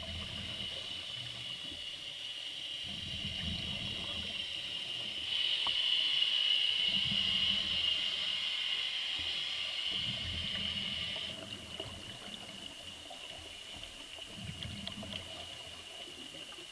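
Underwater sound of a scuba dive: a steady hiss with a thin high whine, and low bubbling surges every few seconds from a diver's exhaled air. The hiss grows louder about five seconds in and eases back after about eleven.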